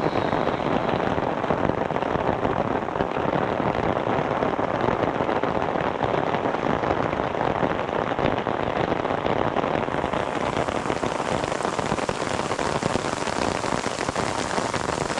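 Heavy rain pouring steadily, a dense, unbroken patter of drops.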